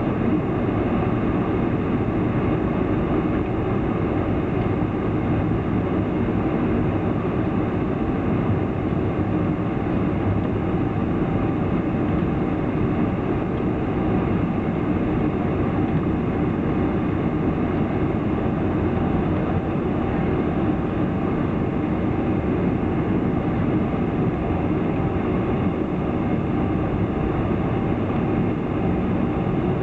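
Steady rumble inside the cabin of a Boeing 747 moving slowly on the ground, its four jet engines running at low thrust.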